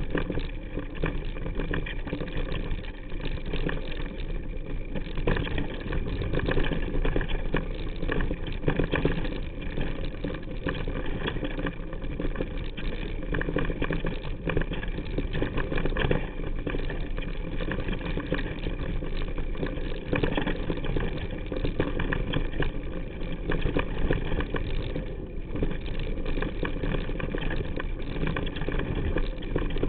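Mountain bike descending rough dirt singletrack, heard from a handlebar-mounted camera: constant rattling and clattering of the bike over the trail, with wind rushing across the microphone.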